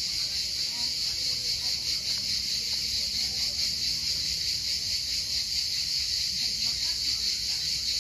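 A steady, high-pitched chorus of cicadas with a fast, even pulsing.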